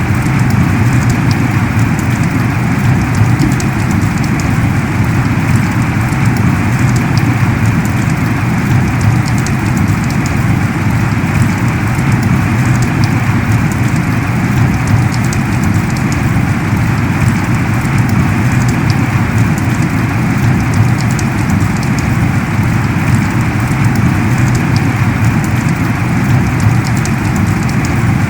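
Heavy rain pouring down steadily, a dense even hiss of drops with scattered sharper drop ticks.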